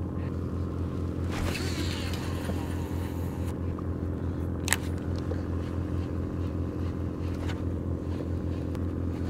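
A steady low motor hum that does not change, with a couple of brief sharp clicks from fishing tackle being handled.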